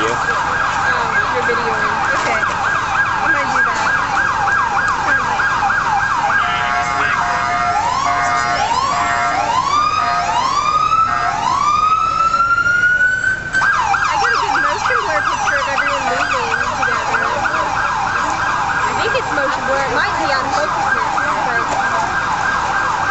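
Emergency vehicle's electronic siren in a fast up-and-down yelp. About a third of the way through it changes to a few slower rising wails and one long rising sweep, then goes back to the fast yelp.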